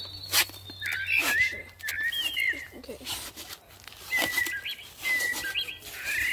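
Recorded bird calls played from a phone through a small hidden speaker as a lure: short whistled chirps, some with quick up-and-down glides, repeated again and again with sharp clicks between them.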